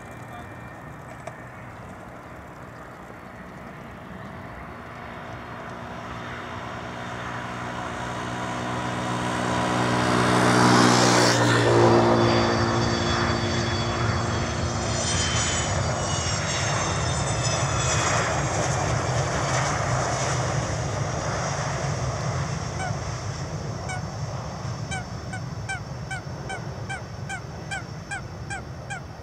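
Twin Rolls-Royce Tay turbofans of a KLM Cityhopper Fokker 70 landing: the engines grow louder as it comes in and touches down, peak about eleven seconds in with a drop in pitch as it passes, then run on steadily with a slowly falling whine as it rolls out. Geese honk over and over, two or three calls a second, in the last several seconds.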